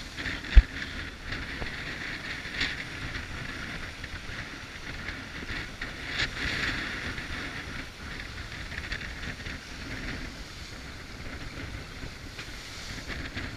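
Gale wind buffeting the microphone and water rushing and splashing along the hull of a sailboat heeled over and sailing fast through rough seas. A single sharp knock about half a second in.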